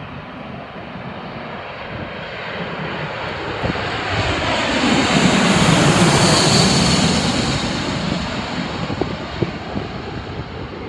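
McDonnell Douglas MD-90 airliner on landing approach passing low overhead, its two rear-mounted turbofan engines building to a loud rush with a high whine about halfway through, then fading as it descends toward the runway.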